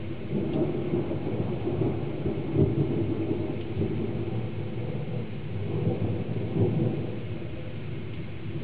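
Thunder rolling in long low rumbles, swelling about two and a half seconds in and again near seven seconds before easing off, over a steady hiss of rain that has just begun to fall.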